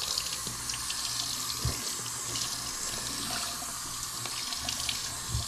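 Bathroom sink faucet running steadily, its stream splashing onto a roll of fiberglass exhaust header wrap held under it to soak the wrap.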